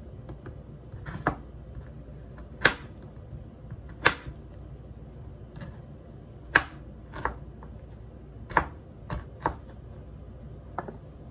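A cleaver chopping pineapple pieces on a plastic cutting board: about nine sharp knocks, unevenly spaced, roughly one every second or so.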